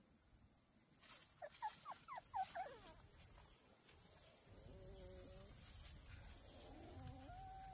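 Puppy whimpering: a quick run of short, high, falling yelps, then a few longer drawn-out whines.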